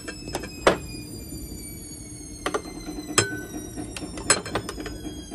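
A spoon tapping and clinking against a glass bowl and mayonnaise jar, four or five sharp separate knocks, while mayonnaise is spooned onto a potato, carrot and pea salad. A faint steady hum runs underneath.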